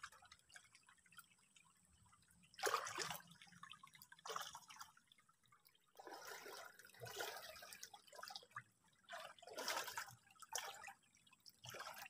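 Shallow muddy water splashing and sloshing in short, irregular bursts as hands grope for fish in a ditch.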